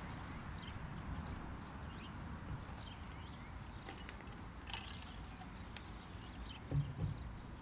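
Faint outdoor country ambience from a music video's opening: short high animal chirps recurring every half second or so over a low steady rumble, with two soft thumps near the end.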